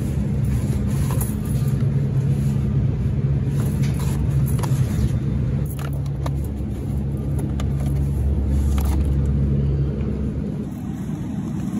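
Steady low hum of refrigerated display cases and their cooling units, with a few light clicks and knocks as cartons are handled. The deepest rumble eases off near the end.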